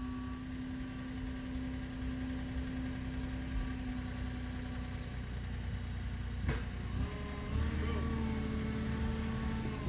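Motor vehicle engine idling with a steady hum. A brief knock comes about six and a half seconds in, and the hum shifts slightly in pitch soon after.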